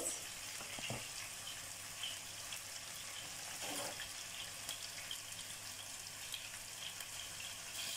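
Sliced onions frying in hot canola oil in a frying pan: a steady, soft sizzle, with a couple of faint knocks.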